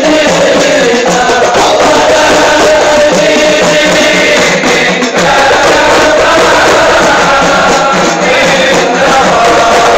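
Crowd of men singing a devotional chant together, loud, in the qiyam of a maulid recitation, the standing salawat to the Prophet Muhammad. A steady low beat runs under the held, gliding melody.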